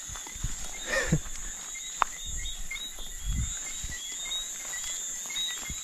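Night insects, crickets among them, keep up a steady high drone with small repeated chirps, over soft thuds and rustles of footsteps through grass. A brief falling sound comes about a second in, and a sharp click about two seconds in.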